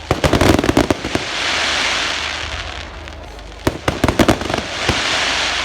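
Fireworks going off: a rapid volley of bangs and crackles at the start, a second volley about halfway through and a single bang near the end, with a hiss swelling between the volleys.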